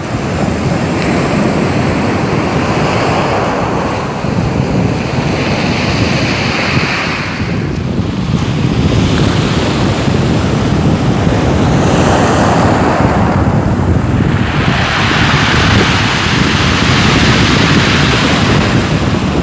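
Sea waves breaking and washing up the shore, the rush swelling and easing with each wave every few seconds, with wind buffeting the microphone.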